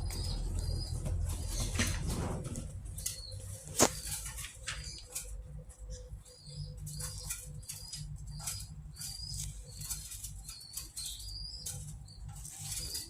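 Small cage birds fluttering their wings, with short high chirps repeated throughout and scattered light clicks. A single sharp click comes about four seconds in.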